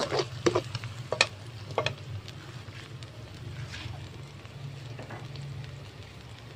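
Butter and sliced shallots sizzling in hot oil in a wok, stirred with a spatula that scrapes and clicks against the pan a few times in the first two seconds.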